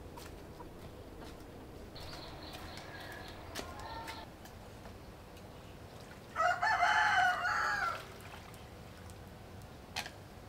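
A rooster crowing once, loud and drawn out for about a second and a half, some six seconds in, with a fainter crow a few seconds before it.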